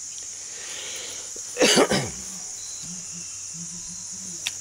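A single short cough about one and a half seconds in, over a steady high chirring of crickets.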